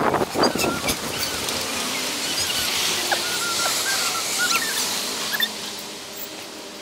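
Bicycle-ride ambience played at four times normal speed: a steady rushing noise that is loudest at the start and slowly fades, scattered with many short, high chirps.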